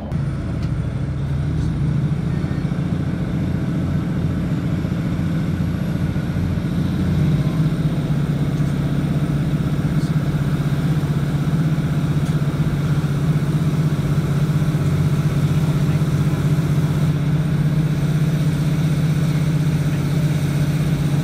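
Class 156 diesel multiple unit's underfloor Cummins diesel engine heard from inside the carriage, working hard as the train pulls away from a station and accelerates, with a faint rising whine. The engine note steps up and gets louder about seven seconds in.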